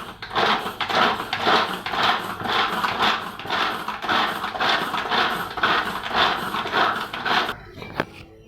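Pull-string vegetable chopper being yanked over and over, about two to three pulls a second, its blades spinning through onion pieces. The pulling stops near the end, followed by a single click.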